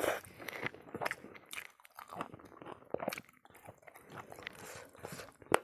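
Close-up wet chewing and crunching of meat on the bone, a scatter of small crackles and clicks as the bone is bitten, with one sharp, louder crack near the end.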